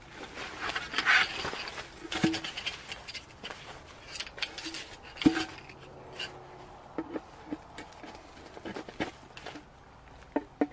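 Rustling of a fabric carry bag as it is opened, then scattered light clicks and knocks as metal poles are handled and fitted into the socket of a round base plate while a piece of camp furniture is assembled.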